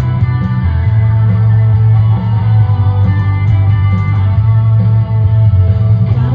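Instrumental break of a rock song: electric guitar playing over a loud bass line and a steady beat, with no singing.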